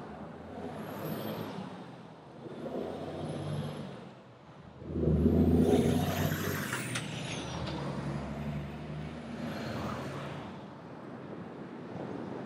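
Road traffic heard from a camera mounted outside a moving car, with engines running. About five seconds in, a vehicle's engine grows much louder, and a hiss comes with it.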